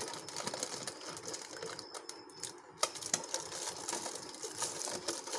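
Plastic fish bag being handled, with irregular crinkling and small clicks as the rubber band is worked off the bag's neck; one sharper click just under three seconds in.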